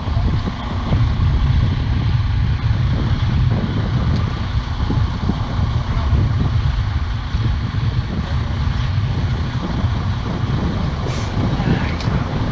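Heavy truck's diesel engine running with a steady low rumble.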